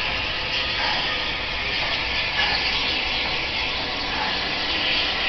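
Bulleid Battle of Britain class steam locomotive passing with a steady hiss of steam.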